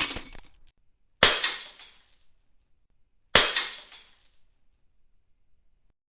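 Glass smashing: the end of one break fading out, then two separate sharp shattering crashes about two seconds apart. Each is followed by tinkling shards that die away within about a second.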